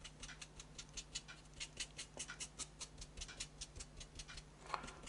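Stiff flat paintbrush dry-brushing paint onto a textured foam-board cobblestone sheet: quick, even scratchy strokes, about five or six a second, faint, with a low steady hum underneath.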